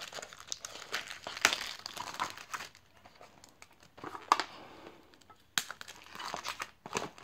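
Cellophane shrink wrap crinkling and tearing as it is peeled off a sealed cardboard card box, in irregular crackles with a few sharper snaps.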